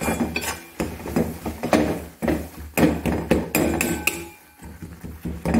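A spatula scrapes and knocks against a metal kadhai while stirring a thick, sticky mixture, with irregular knocks several times a second.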